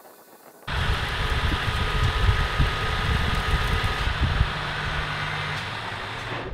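Metal lathe running and turning a tapered metal shaft while the tool takes a cut: a steady machine hum with a faint whine and a hiss of cutting. It starts suddenly under a second in and drops away near the end.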